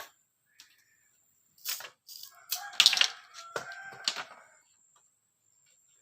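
A cluster of sharp knocks and cracks over about three seconds, loudest a little past the middle.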